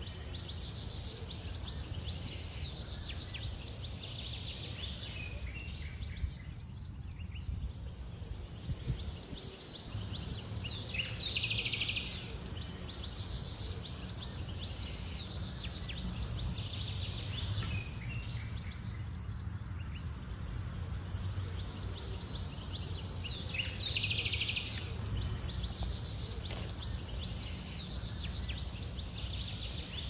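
Outdoor park ambience: a steady low rumble, with short bursts of bird chirping every few seconds.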